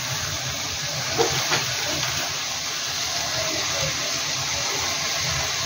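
Chopped onion, peppers and chicken sizzling steadily in a frying pan, with a couple of light scrapes of a metal slotted spatula about a second in.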